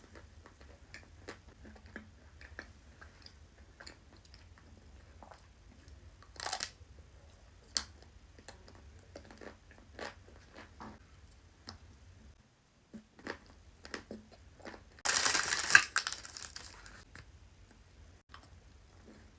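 Close-up eating sounds of Ferrero Rocher chocolates: scattered small crunches and chewing of the wafer shell, with a brief louder crunch about six seconds in and a louder noisy burst lasting over a second about fifteen seconds in.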